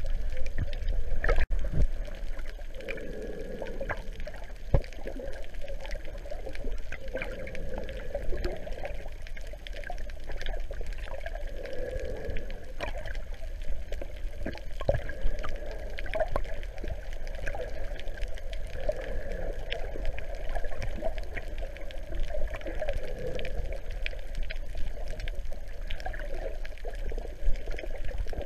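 Underwater sound picked up by a GoPro in its waterproof housing: muffled gurgling and sloshing water, with many scattered sharp clicks.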